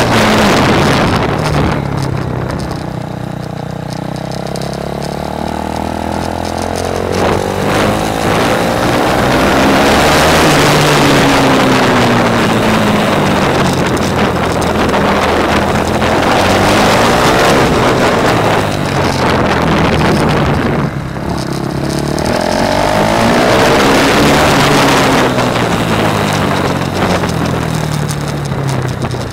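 KTM Duke's single-cylinder engine heard from onboard, its pitch climbing under acceleration and dropping off several times as the bike is ridden through corners on a track, with a short dip about 21 seconds in. Wind buffets the microphone, most strongly at the start.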